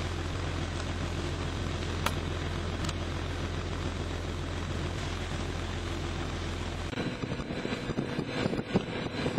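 Steady low rumble of an idling vehicle, heard from inside it, which cuts off abruptly about seven seconds in. After that come irregular knocks and rustling.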